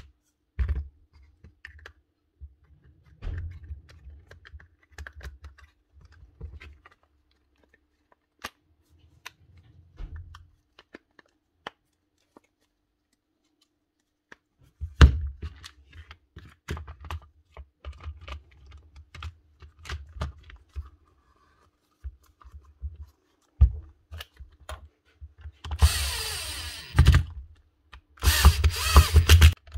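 Clicks and knocks of plastic and metal drill parts being handled and fitted together while a cordless drill's gearbox is put back together. About 26 seconds in, a power tool motor runs in short bursts, the loudest sound here.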